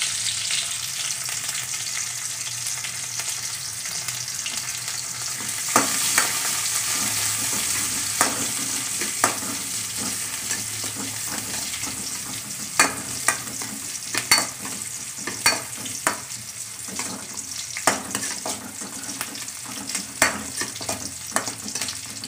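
Sliced onions, green chilli and curry leaves sizzling in hot oil in a metal kadai, with a steady hiss, while a spatula stirs them. From about six seconds in, the spatula clinks and scrapes against the pan every second or so. The onions are being sautéed toward brown.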